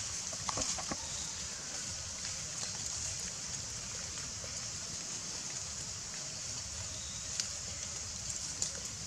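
Outdoor forest ambience: a steady high-pitched hiss with a low rumble beneath, and faint crackles and clicks now and then, like dry leaves being stirred.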